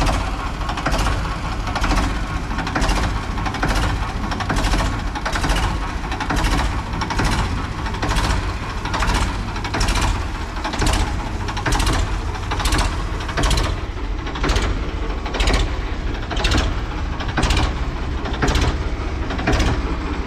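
Ford 3600 tractor's three-cylinder engine running at low speed with a steady rumble, while a sharp knock repeats at an even pace of about once a second.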